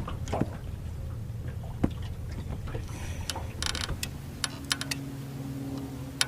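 A motor on a boat humming low and steady, with scattered sharp clicks and ticks; a steadier low tone joins about four seconds in.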